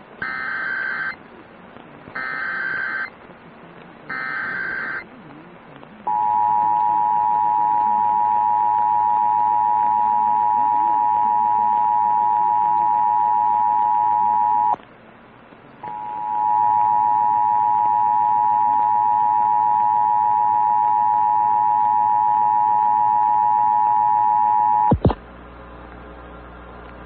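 Emergency Alert System test tones: three short bursts of SAME digital header data about a second apart, then the steady two-tone attention signal (853 and 960 Hz) for around twenty seconds. The attention signal has a one-second break about halfway through and ends in a click.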